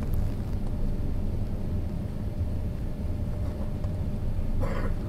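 Steady low rumble of cabin noise inside a four-engined Airbus A380 on final approach: engine and airflow noise heard from a passenger seat, with a faint steady hum above it. A brief short sound comes near the end.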